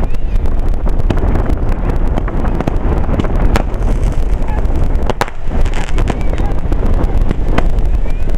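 Fireworks display: aerial shells bursting in a dense run of sharp bangs and crackles over a constant heavy low rumble.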